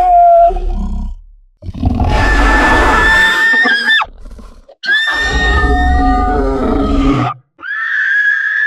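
Jersey Devil monster sound effect: a designed creature roar. The tail of one cry fades, then two long roars of about two and a half seconds each follow with short gaps between, and a higher screech begins near the end.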